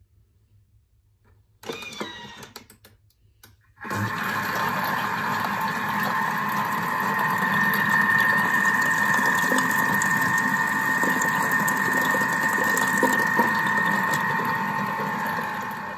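Vorwerk Thermomix TM5 running at speed 3 with the butterfly whisk, whipping cream: a steady motor whine over a noisy churning sound. It starts about four seconds in, after a brief handling sound, and stops near the end.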